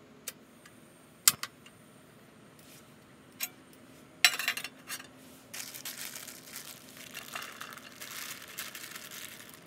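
A single-burner butane camp stove's igniter clicks about a second in and the burner lights; a small pan is set down on the grate with a clatter about four seconds in. For the last four seconds a plastic zip bag crinkles as ground beef is shaken out of it into the pan.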